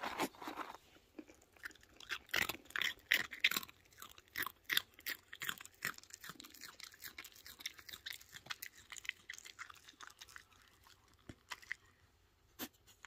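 Red fox chewing almonds close to the microphone. Sharp crunches come thick in the first few seconds, then thin out to softer, sparser chewing, with one more sharp crunch near the end.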